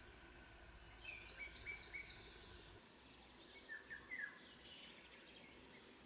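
Faint birdsong: three short chirps about a second in, then a brief run of quick falling notes about four seconds in, over quiet background hiss.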